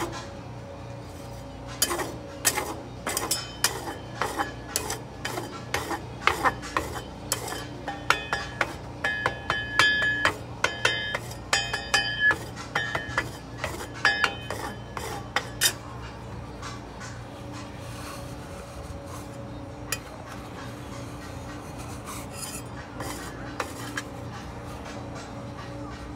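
Metal spatulas chopping and scraping ice cream on the frozen steel plate of a rolled-ice-cream stand: a quick run of sharp taps and scrapes, some of them ringing, which stops about two-thirds of the way through, leaving a steady low hum.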